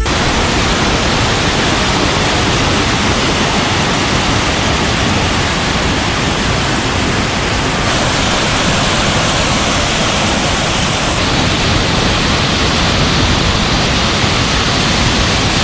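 Waterfall: a loud, steady rush of falling water, its tone shifting slightly about halfway through and again a few seconds later.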